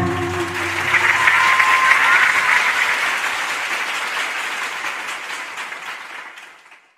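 Concert audience applauding as the band's last note stops, the clapping fading out steadily to silence near the end.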